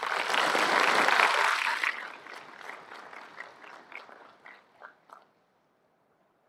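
Audience applauding: a loud burst of clapping for about two seconds that thins out into scattered claps and stops about five seconds in.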